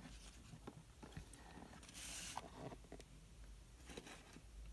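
Faint handling of trading cards and packaging: a few light ticks and a soft rustle about two seconds in.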